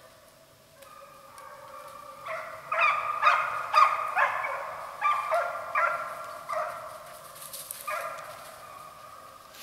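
Deer hounds baying, several drawn-out howling calls overlapping as the pack runs a deer's scent trail. The cry swells to its loudest a few seconds in, then fades toward the end.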